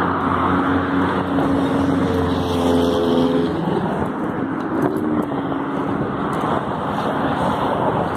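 Road traffic passing close by: a motor vehicle's engine drones steadily for the first three seconds or so and fades, another passes briefly about five seconds in, over a constant rush of traffic.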